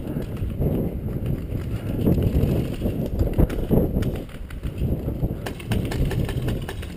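Footsteps of a person walking over dry grass, heard from a camera worn on the body, with low rumble from movement and wind on the microphone. A run of sharp clicks comes near the end.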